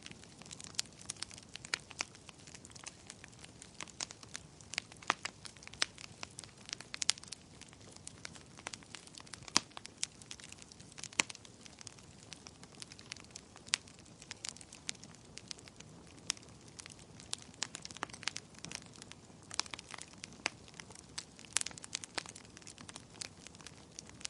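Wood fire burning in a fireplace, crackling: irregular sharp pops and snaps, often several a second, over a soft steady rush of the flames.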